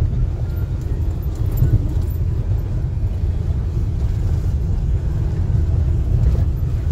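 Steady low rumble of a car driving along, engine and road noise heard from inside the cabin.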